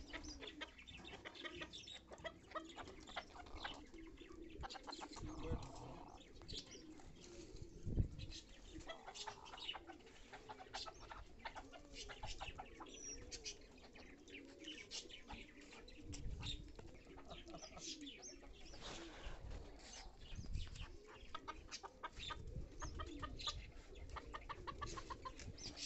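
Japanese bantam chickens clucking softly while foraging, with many small sharp ticks throughout and a low thump about eight seconds in.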